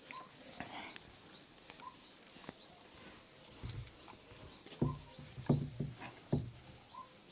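Cloth wiping marker writing off a whiteboard: soft rubbing strokes and light knocks against the board, strongest about five to six and a half seconds in, over faint short high chirps repeating every fraction of a second.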